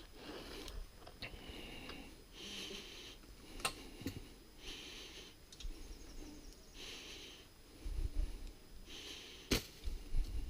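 A person breathing heavily close to the microphone, one breath about every two seconds, with a few sharp clicks in between.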